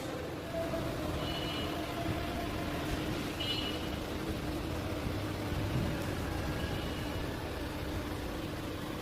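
A vehicle engine running steadily, with an even, unbroken hum.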